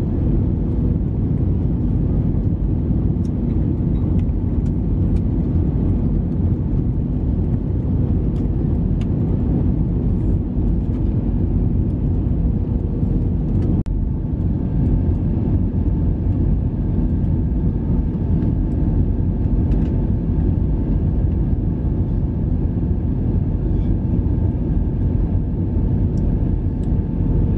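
Cabin noise of a jet airliner descending on approach with its flaps extended: a steady rumble of engines and airflow with a faint hum in it. It drops out for a moment about halfway through.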